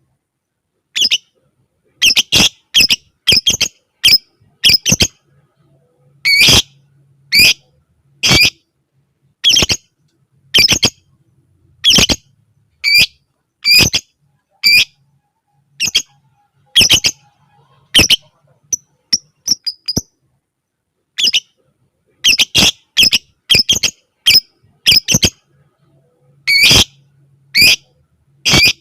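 Lovebird giving sharp, shrill squawking calls, about one a second and sometimes two in quick succession, with a few short pauses.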